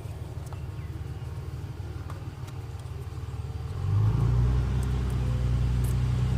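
Low, steady engine rumble, like a motor vehicle running, stepping up louder about four seconds in.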